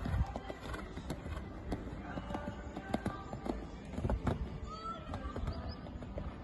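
Hoofbeats of a grey Selle Français stallion cantering on a sand arena: irregular, dull thuds. The heaviest come about four seconds in as it jumps a fence.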